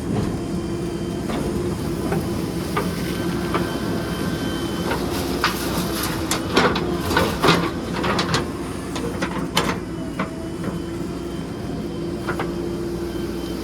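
Diesel engine of a JCB 3DX backhoe loader running steadily while working, with a run of sharp metallic clanks and knocks in the middle.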